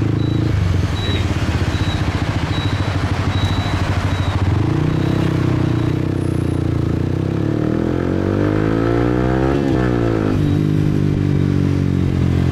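Motorcycle engine heard from the rider's seat, with wind on the microphone. It runs steadily for a few seconds, then pulls hard with its pitch climbing for about five seconds, and drops sharply at a gear change near ten seconds in.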